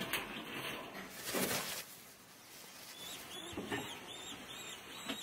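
A falcon calling in a quick run of short, sharp repeated notes, about three a second, starting a little past halfway. A brief scrape or rustle comes earlier, about a second and a half in.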